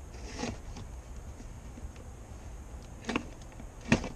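Cardboard shipping box being worked open by hand: a soft rustle of the flaps and tape, then a small click about three seconds in and a sharp knock just before the end. A low steady rumble runs underneath.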